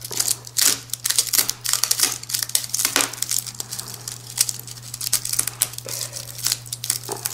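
Utility knife blade sawing and pressing through a dried rattlesnake rattle, its hard keratin segments crackling and crunching in many irregular short snaps.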